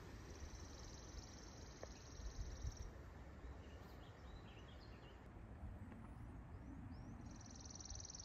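Quiet outdoor wildlife ambience: a high, rapid buzzing trill lasting about two and a half seconds, which starts again near the end, with a few short bird chirps in between, over a faint low rumble.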